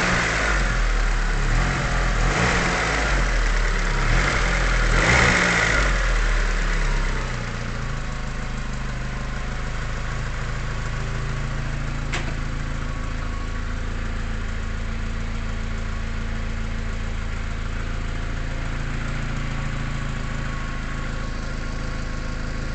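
Mitsubishi 4G63T turbocharged inline-four engine being blipped, swelling every couple of seconds, then settling to a steady idle about seven seconds in. There is a single sharp click about twelve seconds in.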